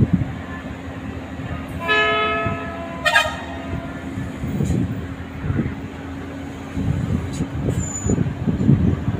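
Truck horn sounding about two seconds in for about a second, followed at once by a shorter, wavering blast. Under it runs a steady engine drone, with wind gusting on the microphone.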